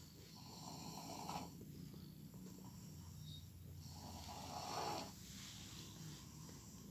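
A sleeping man snoring: two slow, rasping snores about three and a half seconds apart, each lasting about a second.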